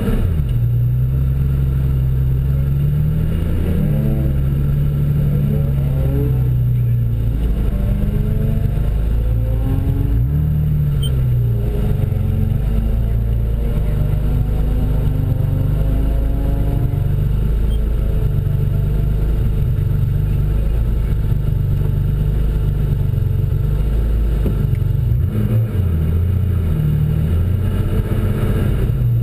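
Porsche 964 Carrera 2's air-cooled flat-six heard from inside the cabin, running at idle. It is briefly revved about four seconds in, rises slowly in pitch as it rolls forward in gear toward the drag strip start line, and is blipped a few times near the end while waiting to launch.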